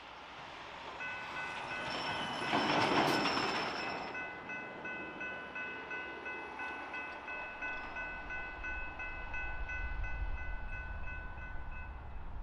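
Railroad grade-crossing bell ringing in quick, even strokes, about two or three a second, starting about a second in. A brief loud rush of noise peaks about three seconds in, and a low rumble from the approaching Norfolk Southern freight train builds over the last few seconds.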